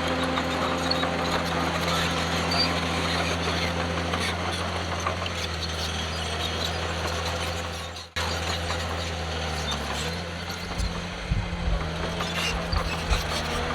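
Heavy earthmoving machine's diesel engine running steadily under load. It breaks off for an instant a little past halfway, then carries on with a few knocks and clatters in the later part.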